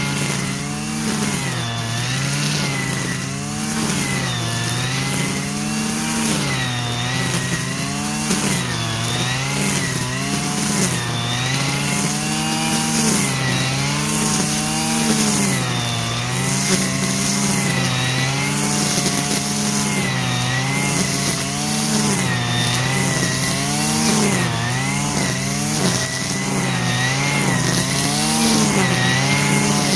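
Stihl FS 120 brushcutter's two-stroke engine running after repair, its speed rising and falling in a regular cycle about every second and a half.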